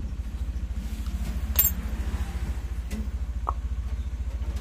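A sharp metallic clink about one and a half seconds in, followed by a few fainter taps, as small metal parts of a blender blade mounting and its bushing are handled and straightened with a drill bit, over a steady low hum.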